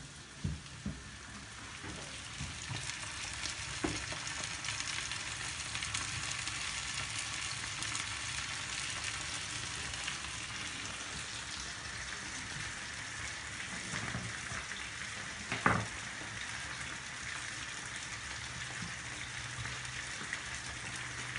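Chopped tomatoes sizzling as they fry in a hot pan of onion and olive oil. The sizzle builds about two seconds in and then holds steady, with a few short knocks, the sharpest about three-quarters of the way through.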